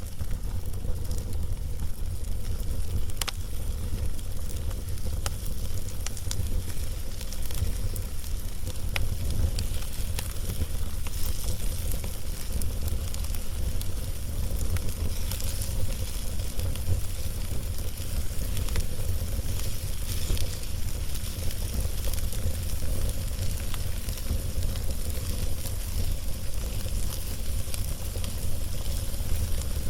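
Wood fire burning, with a hiss and scattered crackles and pops, over a steady low rumble that is the loudest part of the sound.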